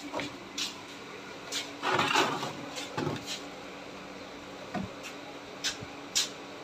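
A few scattered knocks and clicks, with a louder scraping clatter about two seconds in, over a faint steady hum.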